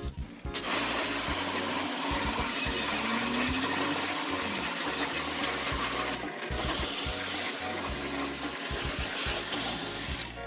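Water spraying in a steady rushing hiss, with a short break about six seconds in, over background music with a low bass beat.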